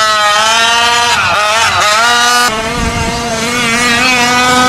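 RC truck's gas two-stroke engine, a Taylor 46GT, revving up and down as it is driven hard, its buzzing pitch dipping twice and climbing back.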